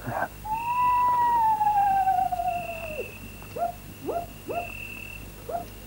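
An owl hooting: one long hoot that slowly falls in pitch, then four short rising hoots. Behind it, crickets chirp in short high trills every couple of seconds.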